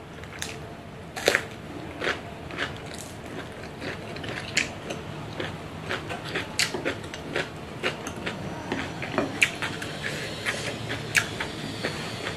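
Close-up eating sounds: crunchy bites and chewing, with many sharp, irregular clicks of chopsticks against a small bowl and plate.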